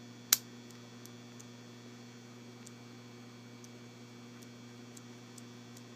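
Steady electrical mains hum, with one sharp click about a third of a second in and a few faint light ticks after it.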